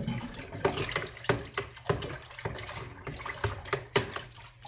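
Water sloshing and splashing in a plastic bucket as it is stirred with a wooden spatula, in irregular splashes. The tap water just added is being mixed into the hydroponic nutrient solution before a TDS reading.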